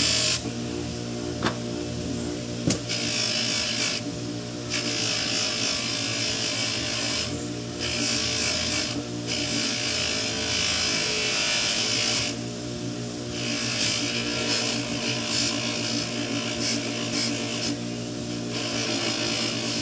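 Bench buffer motor running with a steady hum while a briar pipe is pressed against its spinning cotton buffing wheel charged with carnauba wax. The contact gives a hissing rub that comes in stretches of a second or two, with short breaks as the pipe is lifted and turned.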